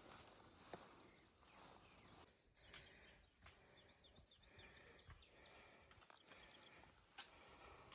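Faint bird chirping: a quick series of short rising notes from about two and a half to five seconds in, over quiet outdoor ambience with a few soft knocks.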